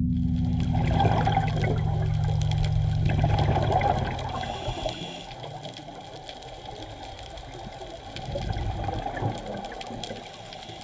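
Muffled underwater rushing and bubbling from scuba divers' regulators and exhaled air bubbles, swelling louder about eight seconds in. A held low musical note fades out over the first four seconds.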